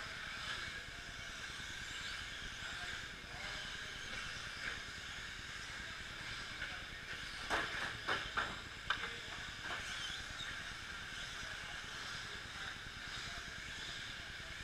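Electric 2WD short course RC trucks racing on a dirt track: a steady high whine and hiss of their motors and tyres, with a few sharp knocks about halfway through.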